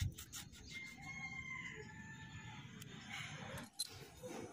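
A rooster crows faintly, one drawn-out crow starting about a second in, over light rustling and a few clicks from hands handling cut copper tubing.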